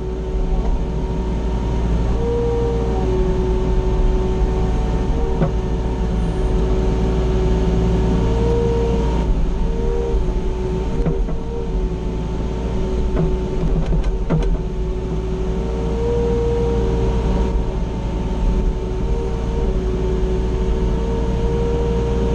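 Mini excavator's diesel engine running steadily, heard from inside the cab, with a hydraulic whine that rises and dips in pitch several times as the machine swings and works.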